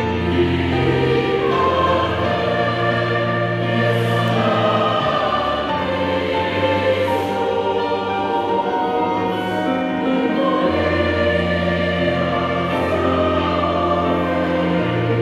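Large mixed choir of about 300 voices singing a hymn in held chords that change every few seconds.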